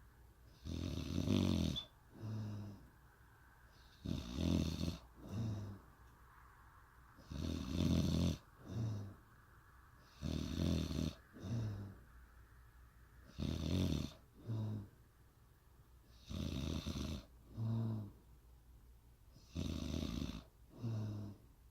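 A woman snoring in a steady rhythm, about one cycle every three seconds: each a longer snore of about a second followed at once by a short one, seven cycles in all.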